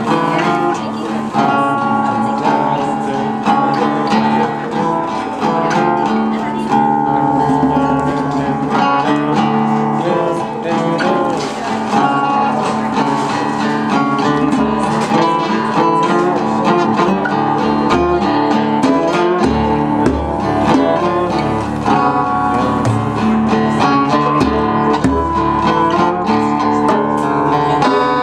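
A band playing an instrumental passage led by strummed acoustic guitar, with no singing. Deeper bass notes come in about two-thirds of the way through.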